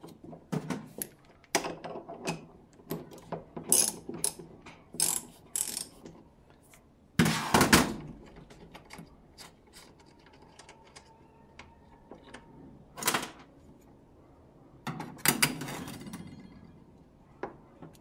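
Metal clicks and knocks as a socket wrench works the nut on a washing machine's gearbox pulley and the pulley is worked off its shaft. A few louder clunks and scrapes come through; the loudest is about seven seconds in.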